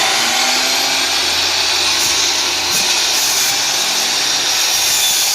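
Hercules 12-inch miter saw's 15-amp motor running at full speed with a steady, loud whine, its blade cutting through a pine 2x4.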